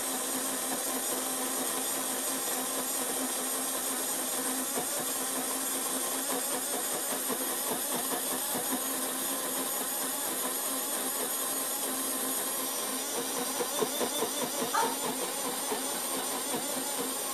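Portable rechargeable bottle blender's battery motor running steadily, blending milk and chopped fruit, with a few louder knocks and rattles near the end.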